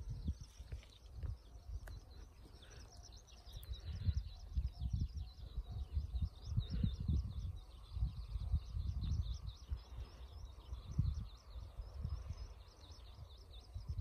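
Wind buffeting the microphone in irregular gusts, with a small bird singing a long, rapid run of high chirps over it.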